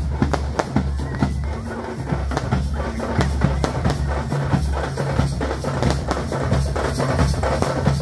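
Procession drum troupe beating large drums in a fast, dense rhythm, with sharp strikes several times a second over a deep, continuous low boom.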